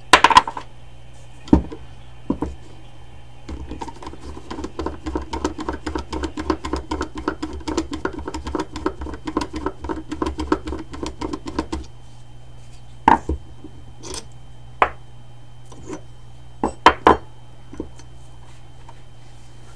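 Metal brake parts of a motorcycle master cylinder and lever being handled on a workbench: a few sharp clicks, then a long run of rapid, even ticking as the lever pivot is worked with a screwdriver, then several separate clicks as parts are set down. A low steady hum runs underneath.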